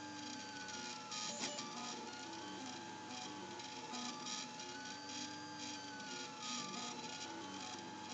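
3D printer running a print, its stepper motors whining as the print head and geared extruder move, the pitch gliding up and down in slow sweeps over a steady tone. A short click comes about one and a half seconds in.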